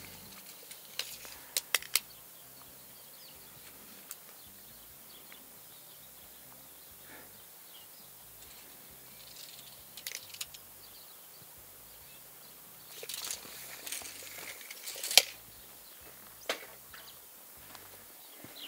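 Quiet outdoor background broken by scattered sharp clicks and taps: three quick clicks about two seconds in, a few single ones later, and a cluster late on with the loudest click about fifteen seconds in.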